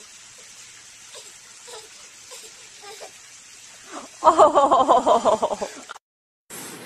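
A burst of quick, repeated laughs about four seconds in, lasting about a second and a half, after faint scattered vocal sounds. The sound cuts off suddenly, then a steady hiss follows.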